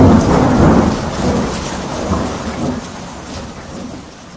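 Thunder sound effect for a lightning logo intro: a loud rumbling crash with crackling that fades away steadily.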